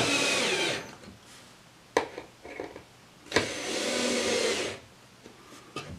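Cordless power screwdriver driving screws through plywood to mount a rotisserie motor, in two runs: one of under a second at the start and a longer one of about a second and a half from about three and a half seconds in. A single sharp click comes about two seconds in.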